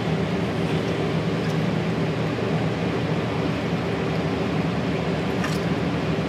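Steady low drone of a ship's engine, several even hum tones, under a constant rushing hiss of water and wind.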